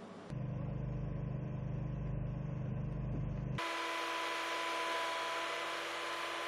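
Heavy military vehicle engine running: first a steady low rumble heard inside the vehicle's cabin. About three and a half seconds in it changes abruptly to a missile launcher truck's engine and machinery running with a steady whine as it raises its missile canister upright.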